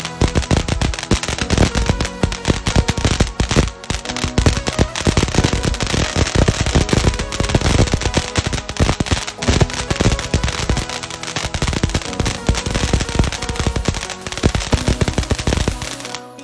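Loud consumer firework crackling: a fast, dense run of sharp pops and bangs that starts suddenly and cuts off about sixteen seconds later. Background music plays underneath.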